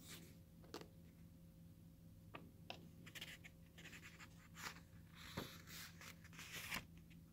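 Faint rustling and scraping of a book's paper page being turned, a few short light paper sounds over a low steady hum.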